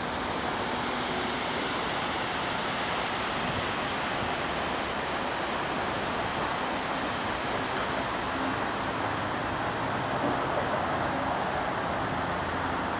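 Steady, even rushing noise of wind, with no distinct events and no train sound.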